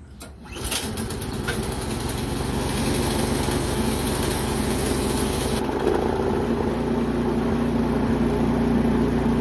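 Single-cylinder Powermore 208cc engine of a Yardworks snowblower starting about half a second in and running steadily, the engine that had not been starting because of a carburetor fault. A high hiss in the sound stops a little past halfway while the engine keeps running.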